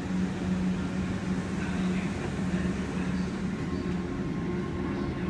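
Class 377 electric multiple unit standing at the platform, its on-board equipment giving a steady low hum that pulses slightly.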